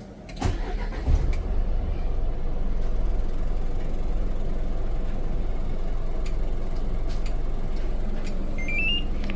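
Hyundai County bus diesel engine remote-started after glow-plug preheat: a click and a brief crank, catching about a second in, then idling steadily. Near the end, a short rising beep tune from the remote-start alarm.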